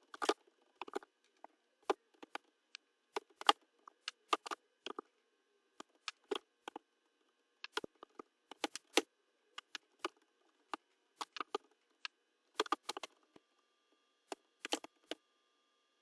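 Computer keyboard keys clicking as code is typed, in uneven runs of keystrokes with short pauses between them.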